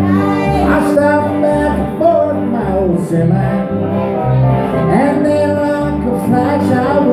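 Live country band playing: strummed acoustic guitar and steel guitar over a steady, pulsing bass line, with a man singing.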